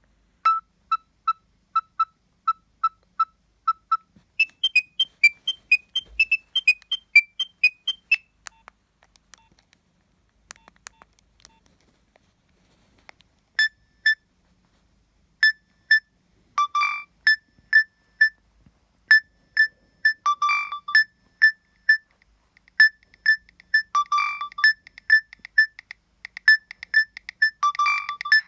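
Nokia 7250i mobile phone playing its preloaded ringtones one after another: tunes of short electronic beeping notes. A slow run of evenly spaced beeps gives way to a faster, higher melody. After a few seconds of faint ticks, a new tune starts: a looping pattern of beeps with a louder, lower note every few seconds.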